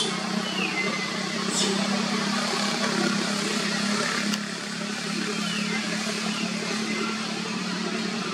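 A steady low motor-like hum under an even outdoor hiss, with a few faint falling chirps and light clicks.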